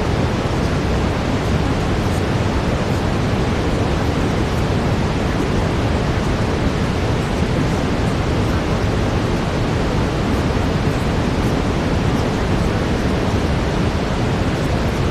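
Steady brown noise: an even, deep rushing hiss with no changes.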